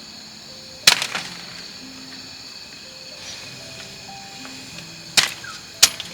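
Three sharp chopping strikes, the first about a second in followed by a couple of smaller knocks, the other two close together near the end, over soft background music.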